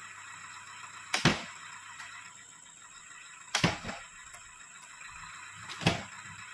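Heavy oil palm fruit bunches thrown up into a lorry's wooden cargo bed, landing with three loud thuds about two and a half seconds apart.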